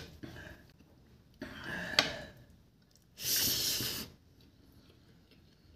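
A man's breath and mouth sounds while eating by hand: two softer breathy puffs with a small click, then a loud, sharp hiss of breath through pursed lips lasting nearly a second, about three seconds in.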